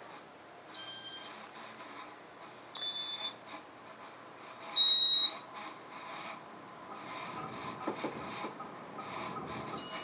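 Piezo beeper of a Casablanca Gemini ceiling fan's Teletouch control sounding three short beeps about two seconds apart, each at a different pitch, as the fan steps through its demo mode. Under them is a steady noise from the fan running on badly worn bearings.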